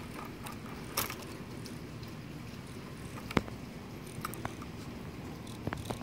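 A few scattered light clicks and ticks from a lipless crankbait being handled with wet fingers, the strongest about a second in and just past the middle, with a small cluster near the end.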